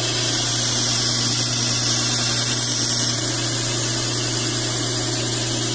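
Belt-type surface grinder running steadily: its motor hums while the fine abrasive belt grinds across a hardened steel knife blade, throwing sparks, on a light half-thousandth pass to true up the blade after straightening. The grinding hiss is strongest for the first three seconds, then eases.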